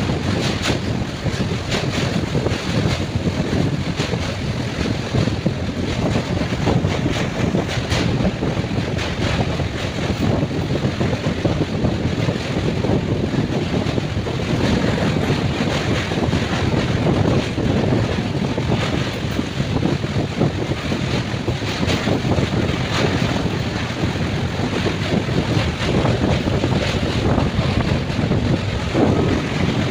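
Moving passenger train heard from inside the coach: a steady rumble and rattle of wheels on track, with scattered clicks and knocks from the running gear and carriage.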